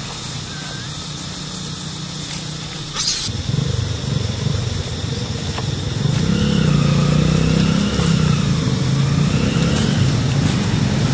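Motor vehicle engine running with a low hum, getting louder about three seconds in and louder again about halfway through, its pitch wavering up and down. A short sharp tick about three seconds in.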